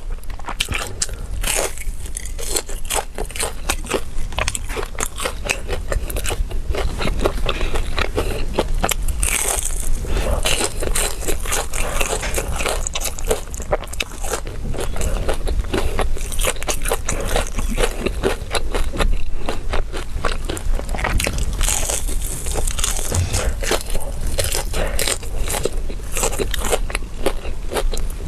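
Biting and chewing of a crispy chicken cutlet: a steady run of crunches throughout.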